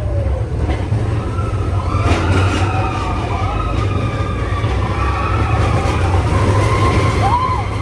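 A vehicle's engine running with a steady low rumble, with wavering higher tones over it. Near the end, a few short rising-and-falling chirps.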